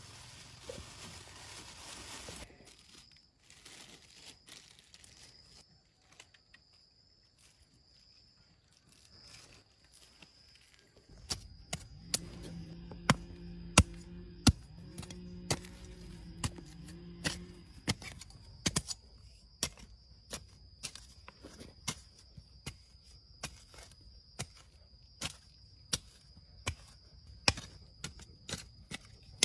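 A run of sharp knocks, one or two a second, starting about eleven seconds in, over a faint steady high-pitched tone.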